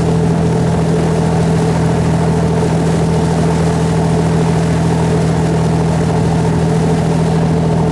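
A boat's engine running steadily, a constant, unchanging low drone.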